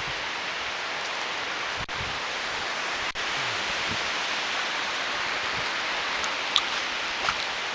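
Steady hiss of rain falling, with a few sharp drip ticks near the end.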